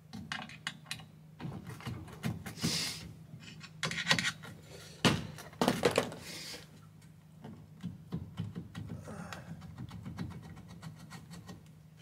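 An end cap being worked off the end of a T-slot roof-rack crossbar by hand: scattered small clicks and knocks, with a few louder clunks and scrapes between about four and six and a half seconds in.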